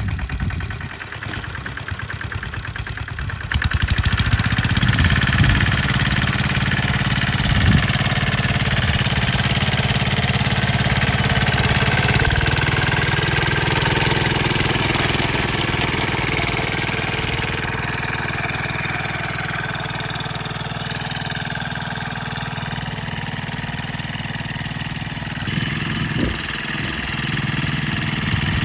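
BCS self-propelled sickle bar mower's engine running steadily while the front cutter bar mows tall grass; it gets louder about three and a half seconds in.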